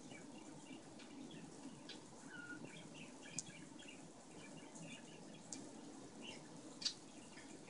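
A cat rolling and pawing at a catnip ball on a rug: faint scratching and rustling with scattered faint high chirps, and three sharp clicks, the loudest near the end.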